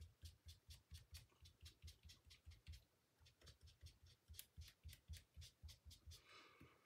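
Quick, even dabbing taps of an ink sponge dauber on cardstock, about five a second, as ink is pounced onto the paper. A soft breath near the end.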